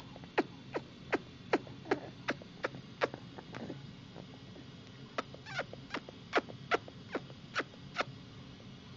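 Quick, sharp mouth clicks, about two to three a second, each sliding down in pitch, with a short pause about halfway through.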